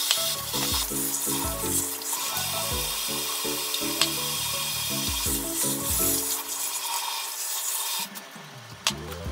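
Kitchen tap running, water splashing into a glass for about eight seconds, then turned off.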